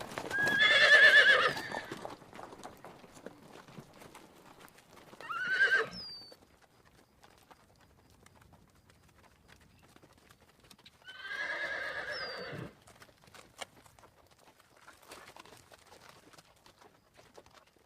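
A horse whinnying three times: a loud whinny in the first two seconds, a short one around the sixth second, and a longer, quieter one a little past halfway. Faint scattered hoof knocks sound between the calls.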